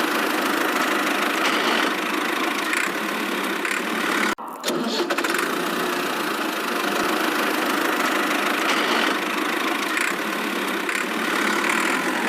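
Small motor of a DIY miniature construction machine running steadily. The sound drops out for a moment about four seconds in, then resumes unchanged.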